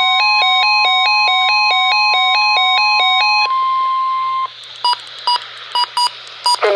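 Weather radio alert: a steady 1050 Hz NOAA Weather Radio warning tone is held under a fast electronic warble that alternates between two chords about four times a second. The warble stops about three and a half seconds in and the long tone about a second later. Radio hiss follows, broken by several short beeps.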